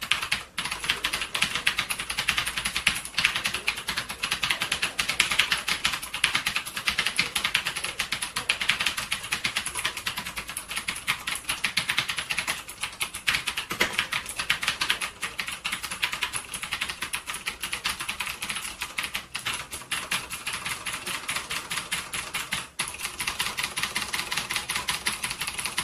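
MStone JAKI keyboard being typed on quickly and continuously: a dense, unbroken patter of sharp key clicks.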